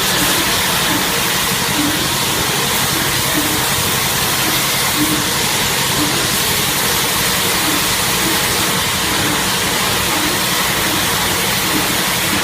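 Steady machine noise: a constant hiss with a low hum and a few steady tones, plus faint short blips that repeat irregularly about every half second to second.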